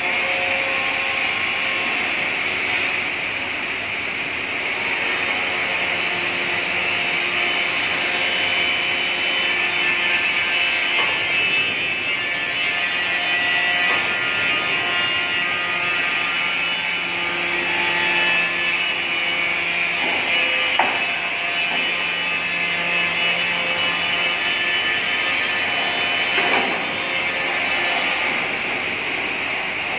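Steady mechanical hiss and hum of workshop machinery while a steel coil is slid onto a decoiler mandrel, with a couple of faint knocks in the second half.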